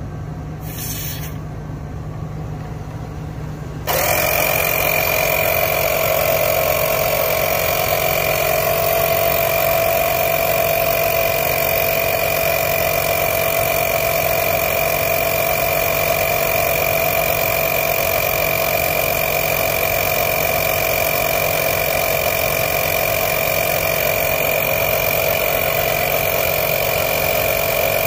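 A brief hiss about a second in, then about four seconds in a Greenworks 24V cordless air compressor starts and runs steadily, with a constant whine, pumping up a truck tyre toward its 40 psi set point.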